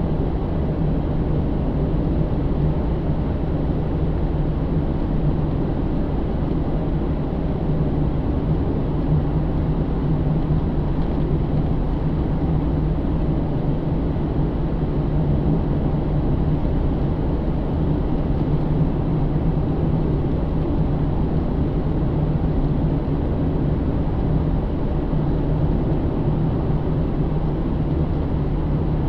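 Inside the cabin of a 2009 Pontiac G8 GT, its 6.0-litre V8 drones steadily under the tyre and road noise while cruising at a constant pace.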